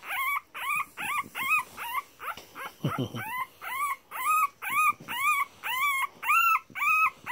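Two-week-old English Bulldog puppy crying: a steady string of short, high, squeaky cries, about three a second, each rising and then falling in pitch.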